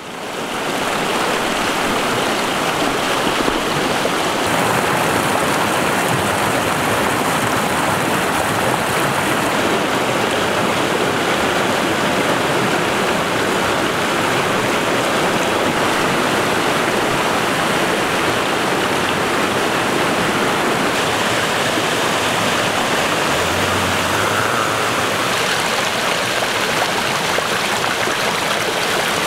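A fast mountain stream rushing over rocks and through white-water rapids: a steady, dense rush of water that fades in at the start.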